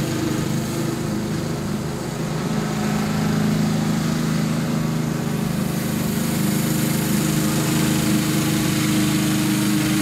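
Walk-behind lawn mower's small engine running steadily under mowing load, getting louder as it comes closer in the second half.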